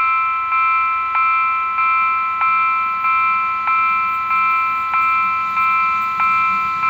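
Railway level-crossing warning bell ringing in an even rhythm, about three strokes every two seconds, each stroke ringing on and fading before the next. It signals that a train is approaching.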